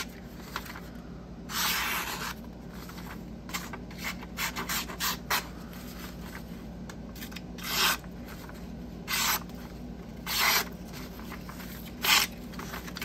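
Daily Carry Co. Magblade folding knife with a thick tanto blade slicing through printer paper: a series of short hissing cuts, several longer strokes of about half a second and a quick run of brief nicks about four to five seconds in. It is a paper-cutting sharpness test, and the blade is pretty sharp.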